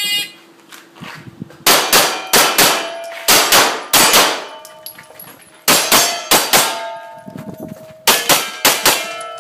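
A shot-timer start beep, then a handgun firing about sixteen rapid shots, mostly in quick pairs with a pause of over a second midway. A metallic ringing hangs after many of the shots.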